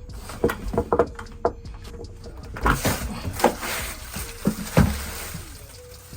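Irregular clicks, knocks and scraping as the leaking valve on a water heater is turned and worked loose by hand.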